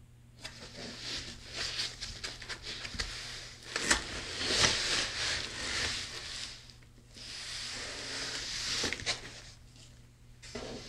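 Packaging being handled in a cardboard box: foam inserts and plastic-bagged parts rustling and scraping, with scattered clicks and knocks. There is a short lull about two-thirds of the way in, then the rustling resumes.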